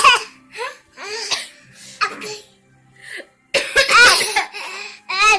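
A baby imitating an adult's cough: a string of short, cough-like vocal bursts mixed with laughter, the loudest lasting about a second from roughly three and a half seconds in.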